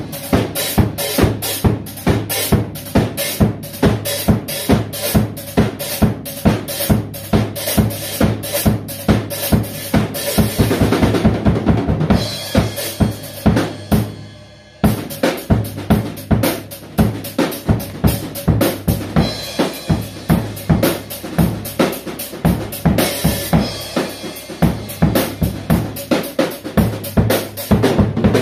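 Dragon acoustic drum kit played with sticks: a fast, steady beat of bass drum, snare and cymbals. About halfway through the beat stops for a moment while a cymbal rings down, then starts up again.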